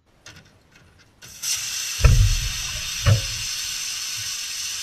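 Faint knocks, then about a second in a loud, steady hiss of a pressurised spray jetting out, broken by two low thumps about a second apart.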